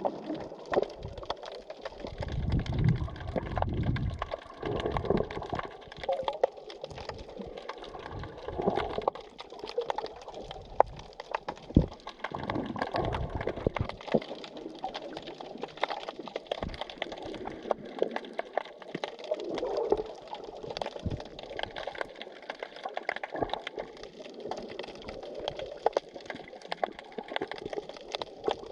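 Underwater sea sound while snorkeling: a continuous crackle of sharp clicks, with low surges of bubbling, gurgling water a few seconds in and again about halfway through.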